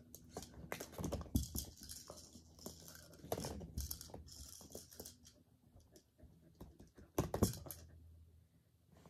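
Plastic stacking-ring toy being knocked and handled by a corgi on carpet: scattered light clicks and rustling in short bursts, about a second in, around three and a half seconds, and a sharper cluster near the end.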